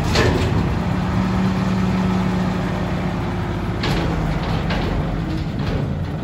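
1986 Volvo front-loader garbage truck's diesel engine running steadily while its hydraulic arms lower the emptied steel bin, with a metallic clank at the start and a few more from about four seconds in.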